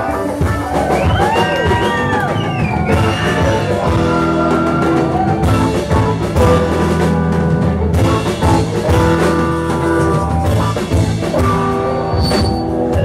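Live rock band playing: electric guitar over a drum kit, with sliding, wavering notes in the first few seconds and held notes over a steady beat after that.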